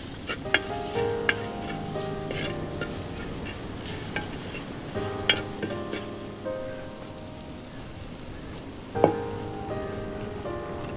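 Sliced shallots and green chilli sizzling in hot oil in a black clay pot while a wooden-handled ladle stirs them. A few sharp knocks of the ladle and clay pottery come through, the loudest about nine seconds in.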